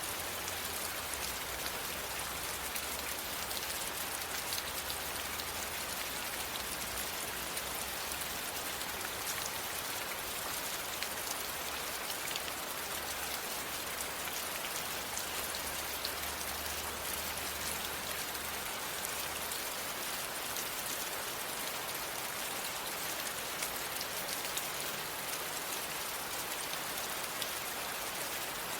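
Steady rain falling, a dense even hiss of many small drops pattering on a surface.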